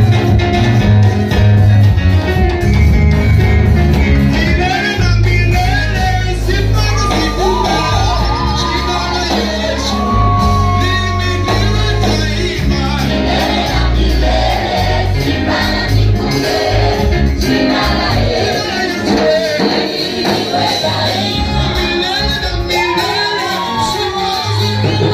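Live church praise music: a band with a heavy, stepping bass line under a congregation singing along, with shouts rising over the singing.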